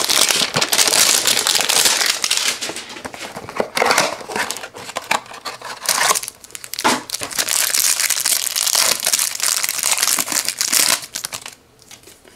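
Cardboard trading-card hanger box torn open by hand and the cards pulled out of it: a long run of tearing and rustling paper that stops about a second before the end.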